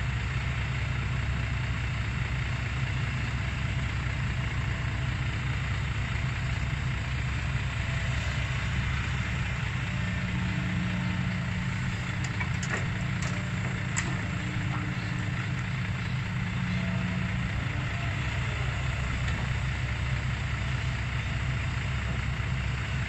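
Heavy diesel engine running steadily. A steadier, higher hum joins in from about ten seconds in until about seventeen seconds, and a few faint clicks sound around twelve to fourteen seconds in.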